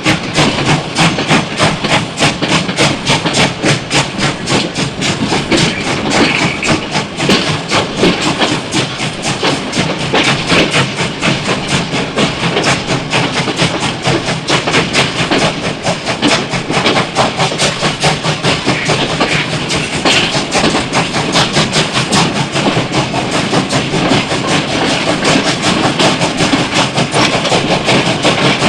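A train in motion, its wheels clattering over the rail joints in a fast, even clickety-clack over a steady rumble and hiss.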